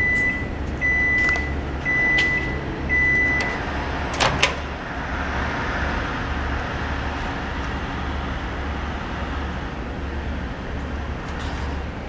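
A GE microwave oven's beeper sounds four short, steady beeps about a second apart, signalling the end of its cooking cycle. A sharp clack follows as the door latch releases and the door opens, and then a cup rustles as it is lifted off the turntable, all over a low steady hum.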